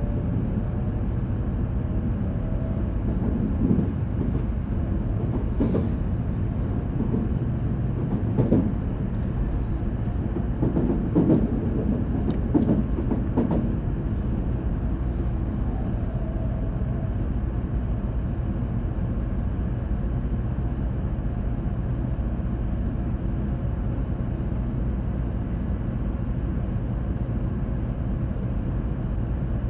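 Steady low rumble of a Shinkansen train running at speed, heard from inside a passenger car, with a few faint knocks and clicks in the first half.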